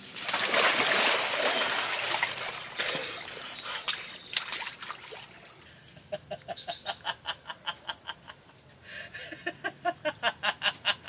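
Water splashing heavily as a body goes into muddy water. From about six seconds in, a man laughs in a run of short, rhythmic ha-ha bursts, which grow louder and faster near the end.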